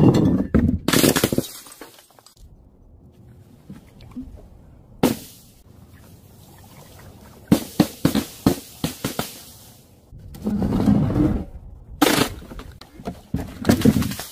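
A series of separate smashes and bursting splats: a loud one at the start, one about five seconds in, several in quick succession about halfway through and more near the end. They come from glass bottles breaking and paint-filled balloons bursting on the ground.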